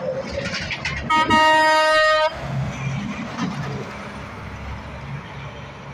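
A semi truck's horn sounds once for a little over a second, about a second in, over the running diesel engines of tractor-trailers passing close by.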